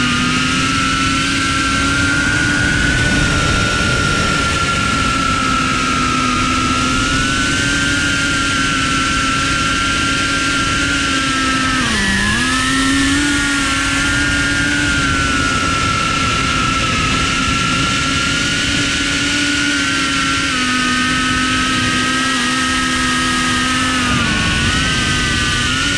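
Cinewhoop FPV drone's brushless motors and ducted propellers whining steadily, over a hiss of prop wash. The pitch dips briefly and climbs back about halfway through, and again near the end.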